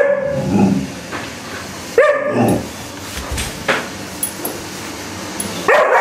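Alaskan Malamute puppy barking, the 'shouting' the breed is known for. There are calls at the start, then a sharp call about two seconds in that slides down in pitch, and a run of loud barks near the end.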